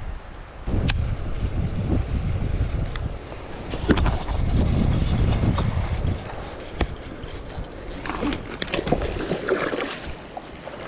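Sounds of a kayak on the water with wind buffeting the microphone, a rough low rumble for the first six seconds or so, broken by a few sharp knocks.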